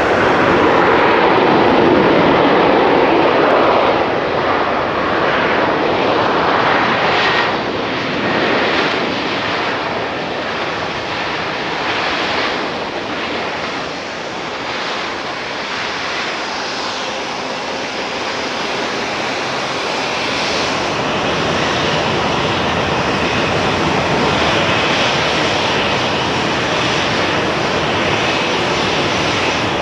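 Boeing 737 airliners on a wet runway: jet engine noise mixed with the hiss of tyre spray, loudest in the first four seconds as one touches down, then steadier and a little quieter, building again with a faint high whine near the end.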